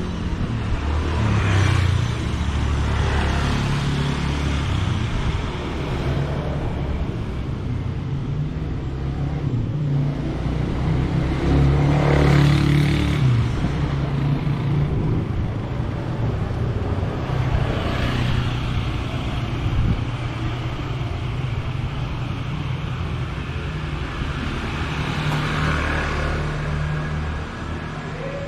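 Street traffic: motor vehicles passing one after another over a steady engine hum, the loudest pass about twelve seconds in.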